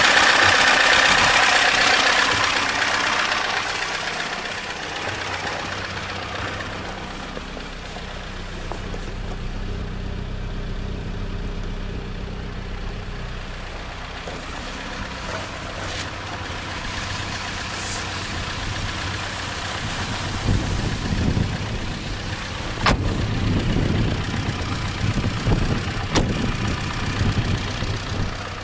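Ford Scorpio's 2.0-litre DOHC four-cylinder idling steadily: loud and hissing close to the open engine bay for the first few seconds, then a quieter, steady hum. From about two-thirds of the way through, irregular low thumps and rumbles come over it.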